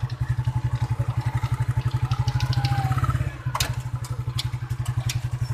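Motorcycle engine of a passenger tricycle running with a fast, even pulse, heard from inside the sidecar over a bumpy road, with the body rattling. The engine note shifts a little after three seconds, and a quick clatter of knocks follows.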